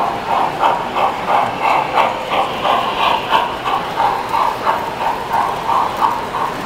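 Model steam locomotive running with a steady chuffing rhythm, hissy chuffs at about three a second.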